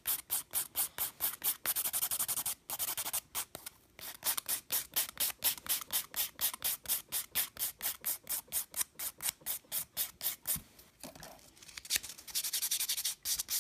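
Nail buffer block rubbed rapidly back and forth over an acrylic-powder nail tip, about five quick scratchy strokes a second, smoothing the surface. The strokes thin out for a moment about two seconds before the end, then pick up again.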